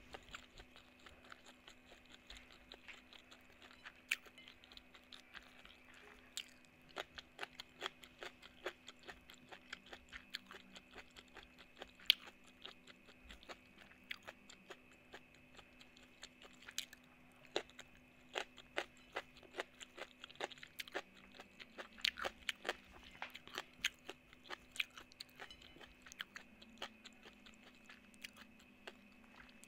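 Close-miked chewing and crunching of cucumber and spicy mango salad with rice, many sharp crunchy clicks, sparse at first and much denser after the first few seconds.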